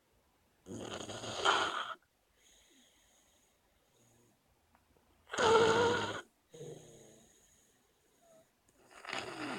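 Snoring in a slow, regular rhythm: three loud snores about four seconds apart, each followed by a fainter breath.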